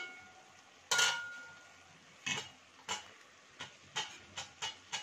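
A metal spoon stirring cooked pumpkin (kaddu) sabzi in a metal kadai, knocking and scraping against the pan several times. A ringing metal clank about a second in is the loudest sound.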